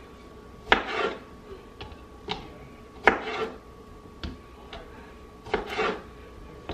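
Kitchen knife halving cherry tomatoes on a plastic cutting board: three sharp knocks of the blade on the board, each followed by a brief rustle, with fainter taps between.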